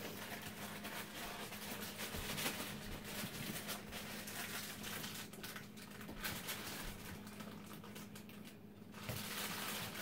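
Faint, irregular rustling and light clicking from hands handling things at a kitchen counter, over a steady low hum.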